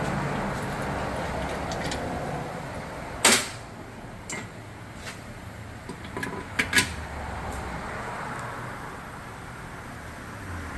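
Clicks and knocks of hand work on the intercooler mounting: one sharp knock about three seconds in and a couple of quick clicks past the middle, over a steady background hum.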